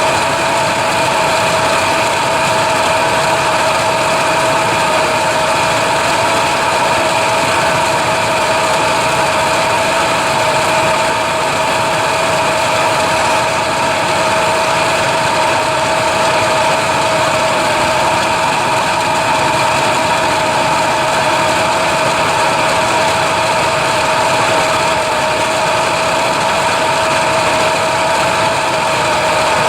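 A machine running steadily at a constant pitch, with a continuous hum.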